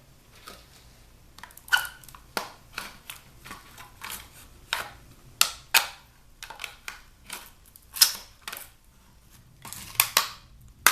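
Irregular sharp clicks and knocks of hard plastic parts and hand tools as a clothes steamer's main unit is taken apart, the loudest about eight and ten seconds in.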